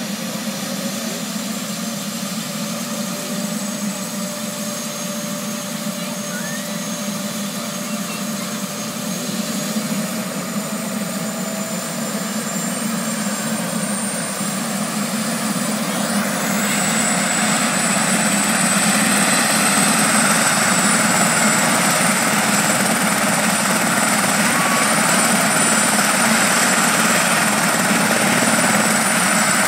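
Turbine helicopter running on the ground: a steady engine and rotor roar with a high turbine whine. Its pitch creeps upward, and about halfway through the sound grows louder, with the whine sharper as the engine spools up. It then holds steady.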